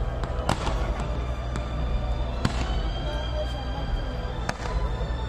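Fireworks going off, with sharp bangs about every two seconds and smaller cracks between them, over a constant low rumble. Music plays along with the display.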